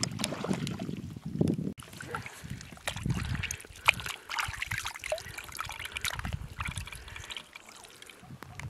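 Hands washing raw chicken pieces in water in a metal bowl: irregular splashing and trickling of water with wet slaps of the meat. It starts about two seconds in, after a low rumble.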